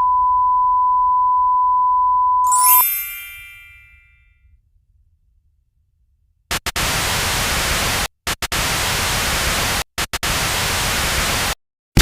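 Edited sound effects: a steady pure beep tone for nearly three seconds, cut off by a bright bell-like ding that rings out and fades. After a short silence, loud white-noise static comes in about halfway through, switching off and on sharply twice.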